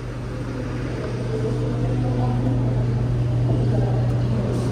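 Steady low hum of a stopped train's diesel engine running at idle, growing slowly louder.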